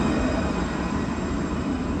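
Alstom Citadis tram running: a steady low rumble and rolling noise, with a faint high whine that fades out within the first second.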